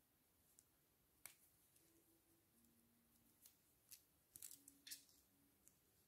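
Near silence with faint handling noise from a flat Cat7 Ethernet cable with shielded RJ45 plugs being turned over in the hands. There is one light click a little over a second in and a quick cluster of clicks and rustles about four to five seconds in.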